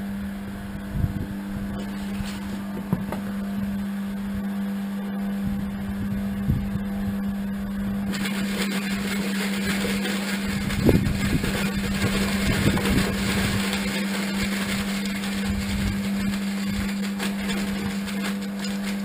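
A steady low machine hum with a few knocks. A hissing noise joins about eight seconds in and carries on.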